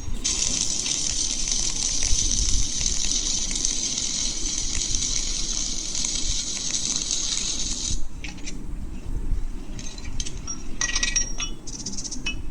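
Welding arc hissing and crackling steadily for about eight seconds, then cutting off sharply, followed by scattered light metallic clicks and clinks.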